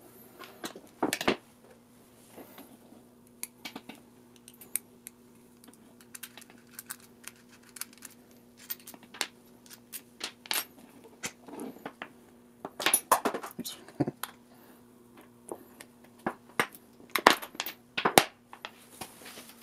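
Irregular metallic clicks and clinks of small machined aluminium parts, steel cap screws and an Allen key being handled and set down while a pneumatic fixture is disassembled, with louder bursts of clatter about 13 and 17 seconds in. A faint steady hum runs underneath.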